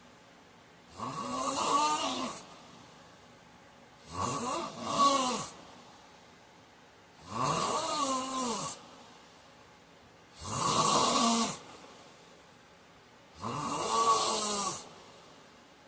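A man snoring in his sleep: five snores about three seconds apart, each lasting over a second, with a pitch that rises and then falls. The second snore comes in two pushes.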